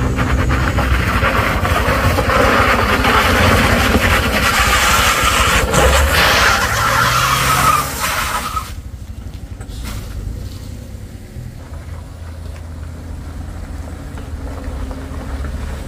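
Small hatchback car's engine pulling hard up a slippery slope of mud and loose gravel, with a loud rush of tyre noise on the loose surface. The noise cuts off sharply about eight seconds in as the car passes, leaving a quieter, low engine rumble.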